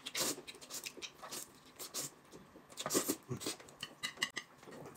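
A man eating noodles with chopsticks: a string of short, irregular slurping, chewing and clicking sounds.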